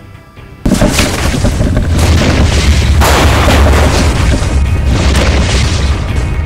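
Loud music with a heavy, booming bass starts suddenly less than a second in and stays loud.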